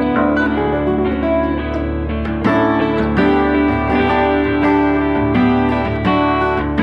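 Guitar music: plucked and strummed guitar chords with a sustained bass line underneath.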